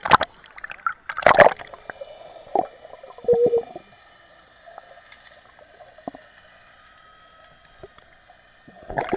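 Water splashing twice within the first second and a half, followed by a few smaller splashes and then quieter gurgling.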